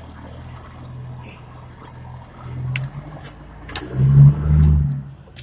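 Scattered light metallic clicks of a lug wrench on a car's wheel nuts over a low rumble, which swells loudest a little after four seconds in.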